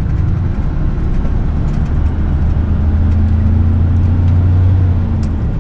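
Heavy truck's engine and road noise heard inside the cab while driving, a steady low hum. The engine note grows stronger from about two seconds in and falls away near the end.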